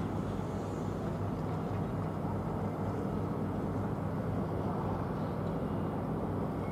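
Steady low rumble of city traffic, an even noise with no distinct events.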